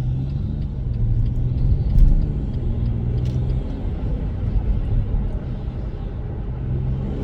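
BMW M140i's turbocharged straight-six running on the move, heard with a window down: a steady low engine hum over road and wind rumble, with a brief louder thump about two seconds in.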